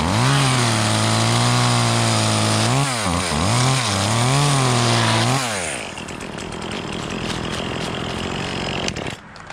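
Chainsaw running at high revs, the engine note dipping and picking up again several times. About six seconds in, the clear engine note gives way to a rougher, noisier sound as the saw cuts into the old frond bases on the palm trunk. It stops shortly before the end.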